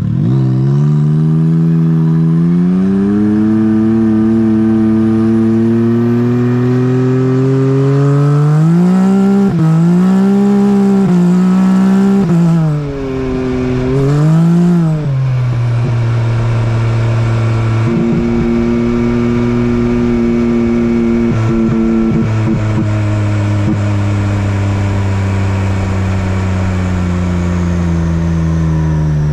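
Side-by-side UTV engine heard from on board while driving. Its pitch climbs steadily over the first several seconds, rises and falls several times around the middle as the throttle is worked on and off, holds fairly steady, then drops away near the end.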